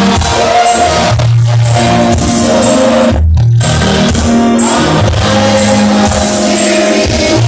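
Loud amplified praise-and-worship music: singing voices over a steady bass line, played through a PA.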